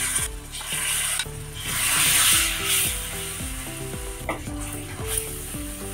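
Water poured into spices frying in hot mustard oil in a kadhai, sizzling loudly, then settling to a quieter steady sizzle about three seconds in as a steel spoon stirs the masala.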